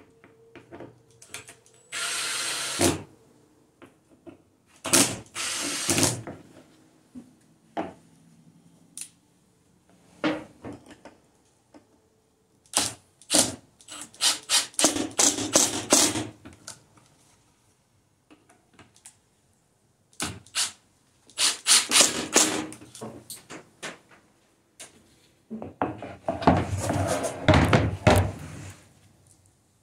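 Cordless drill driving screws in several short bursts, fastening a wooden stop block to a plywood table-saw jig. Near the end comes a longer stretch of a long wooden board knocking and sliding as it is laid onto the jig.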